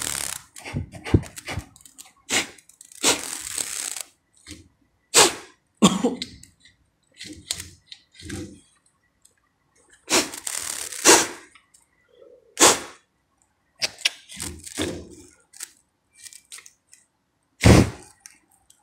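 Hands working a window's mesh insect screen and its frame: irregular knocks, clicks and rubbing, with a couple of longer scraping slides. A heavier knock comes near the end.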